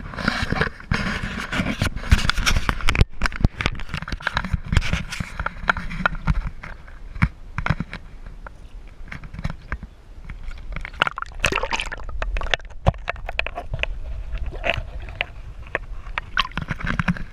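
Water splashing and sloshing around an inflatable kayak, with many irregular sharp knocks and scrapes against the boat.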